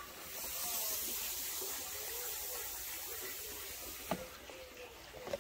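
Aluminium fizzing hard in hydrochloric acid and copper chloride waste, a steady hiss that swells about half a second in and eases off after about four seconds. The violent reaction is heating the acid and giving off fumes.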